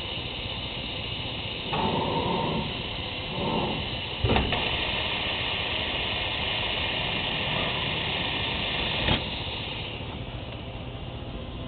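Selective soldering machine running with a steady hiss. Two short louder whirring stretches come early, then a sharp click about four seconds in starts a louder steady hiss, which stops at another click about nine seconds in.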